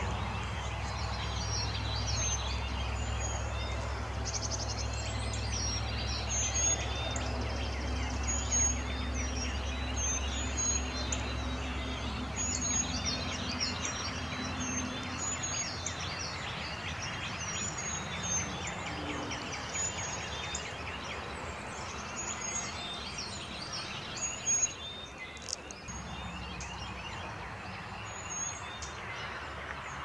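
Dawn chorus: many songbirds chirping and singing at once, with one short high call repeated over and over. A low steady rumble runs underneath and fades out about halfway through.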